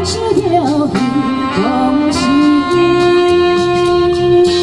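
A woman's amplified singing and a saxophone over a keyboard backing track with a steady beat. From about three seconds in, one long note is held, wavering with vibrato near the end.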